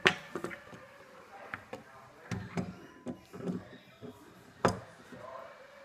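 Handling noise from a small plastic Nerf blaster being taped up: a sharp click at the start and another about four and a half seconds in, with softer knocks and thumps between.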